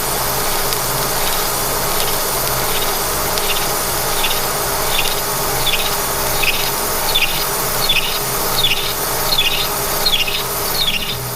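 Milling machine running under cut, with a short high squeal repeating about every three-quarters of a second from the milling cutter, growing louder toward the end.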